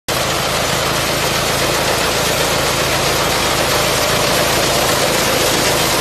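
The 10 hp diesel engine of a tracked mini rice combine harvester running steadily while the machine cuts and threshes rice, a loud, even mechanical din with no change in pace.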